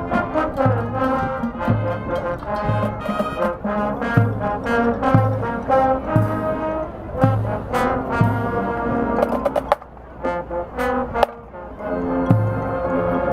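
High school marching band playing: the brass section holds chords over sharp drum hits, with a low bass note pulsing about once a second. The music drops briefly about ten seconds in, then comes back in full.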